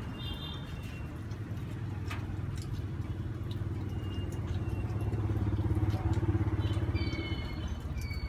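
A motor vehicle engine running with a low steady hum, growing louder about halfway through and easing off near the end.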